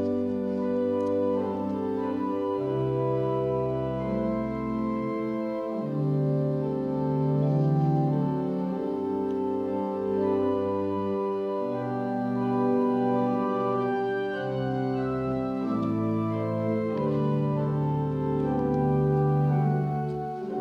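Pipe organ playing slow, sustained chords over a bass line that moves to a new note every two or three seconds.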